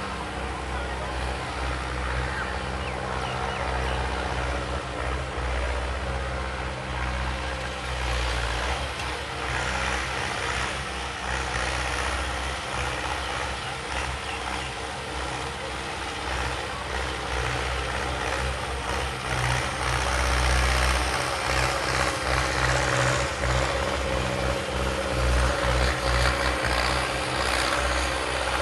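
Hindustan 60 tractor's diesel engine running steadily, a little louder in the last third.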